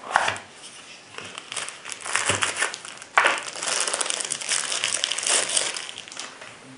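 Folding knife being taken out of its cardboard box: packaging rustling and crinkling in a run of handling noises, with a sharp rustle just after the start and another about three seconds in, and steady crinkling after that until shortly before the end.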